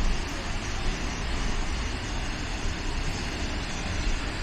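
Snoqualmie Falls, a 268-foot waterfall, giving a steady, even rushing roar of falling water with a strong low rumble.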